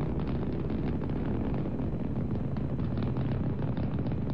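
Saturn V rocket's five F-1 first-stage engines during ascent: a steady low rumble shot through with crackle, from a launch broadcast recording.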